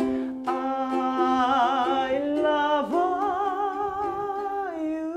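A man sings the closing line of a song, holding long notes with a wide vibrato and stepping down in pitch, over a couple of ukulele strums at the start.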